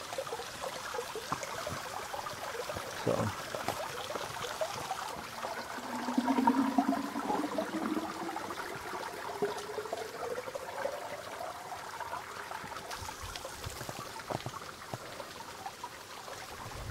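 Trickling water running into a 48-ounce plastic water bottle held under the flow. Partway through, the filling note rises steadily in pitch over about five seconds as the bottle fills up.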